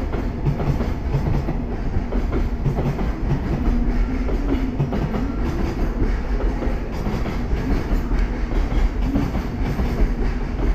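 Container freight wagons rolling past at speed: a steady rumble of wheels on rail, with the rhythmic clatter of wheels over rail joints.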